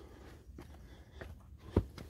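Hiking footsteps on a rocky trail: a few separate steps about half a second apart, then one much louder knock near the end.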